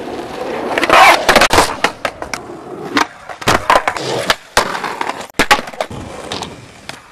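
Skateboard wheels rolling on asphalt, broken by repeated sharp wooden clacks of the board popping and landing.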